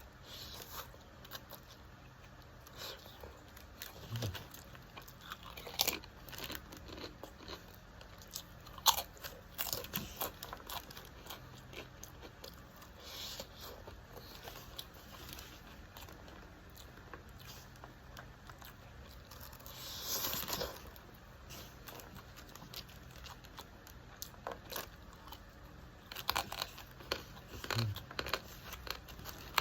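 A person chewing and biting food up close, with irregular small clicks and taps throughout and a short noisy rustle about twenty seconds in.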